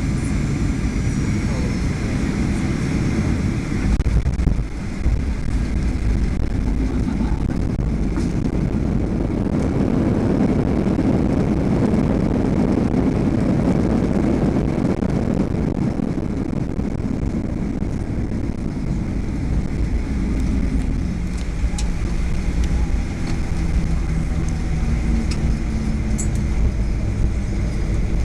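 Cabin noise of a Boeing 737-800 with CFM56-7B engines during landing rollout. There is a jolt about four seconds in, then the engines' roar swells and fades as the jet slows on the runway.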